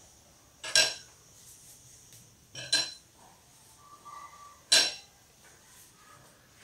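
A metal baking tray clinking three times, about two seconds apart, as hands press and smooth the pastry sheet laid in it.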